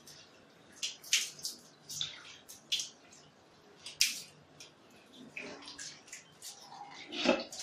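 Water thrown from a mug splashing onto a tiled window sill in a series of short splashes, with a longer one near the end, rinsing off bathroom cleaner.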